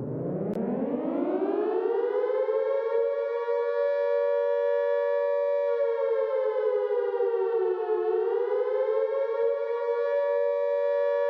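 Civil defense warning siren winding up from a low pitch to a steady wail of two close tones sounding together. Its pitch sags briefly about eight seconds in, then rises back.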